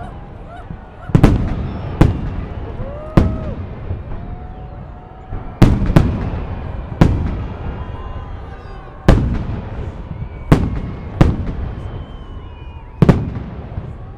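Holiday fireworks salute: aerial firework shells bursting overhead in a series of about ten loud booms, one to two seconds apart, each rumbling and echoing away before the next.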